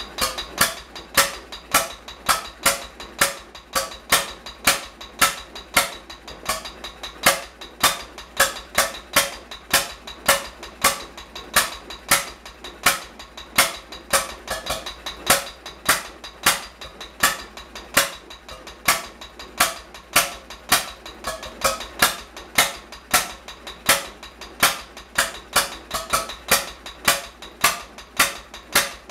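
H V McKay Sunshine 7hp single-cylinder stationary engine running, with sharp, evenly paced exhaust beats and metallic clatter from its moving parts between them.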